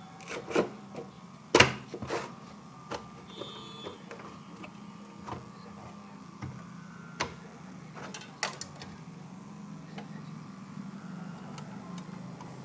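Scattered sharp clicks and knocks of hands handling the wiring and plastic parts of an opened CRT television chassis. Several come in the first two seconds and a couple more come about seven and eight seconds in, over a steady low hum.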